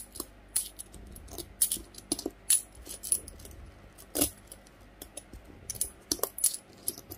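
Old Thai one-baht Garuda coins of 1974 clinking together as they are picked up two at a time and stacked by hand: an irregular run of sharp metallic clicks, with one louder clink about four seconds in.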